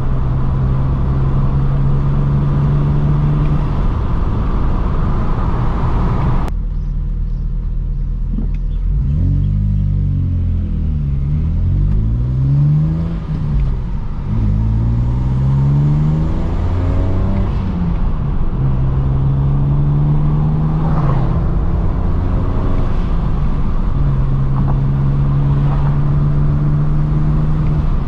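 BMW N54 twin-turbo straight-six running while the car is driven, heard from inside the car. Its pitch holds steady, then rises and falls several times in the middle as it is revved and let off, then settles steady again. A hiss of road and wind noise cuts off sharply about six seconds in.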